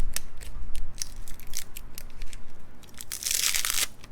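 A packet of tire repair plugs being handled and torn open: crinkling and clicking of the wrapper, then a tear lasting under a second about three seconds in.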